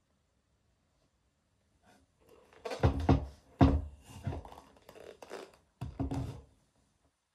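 Regal double-monk-strap leather dress shoes being handled and set down on a desk: a few sharp thunks and knocks of the shoes against the tabletop about three seconds in and again around six seconds, with softer handling noise between.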